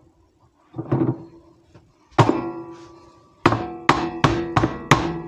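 Metal baking pans knocking together and ringing: a clank about a second in, another at two seconds, then five quick clanks in a row, each leaving a ringing tone that dies away.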